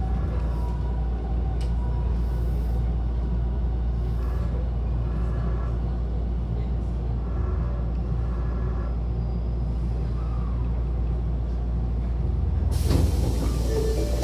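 Steady low rumble of a commuter train car's interior, then about 13 seconds in a loud hiss lasting a second or so as the car's sliding doors open at the station.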